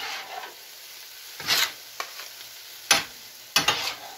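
Two metal spatulas scraping and chopping through chili on a hot Steelmade flat-top steel griddle, a stroke every second or so, over a steady sizzle.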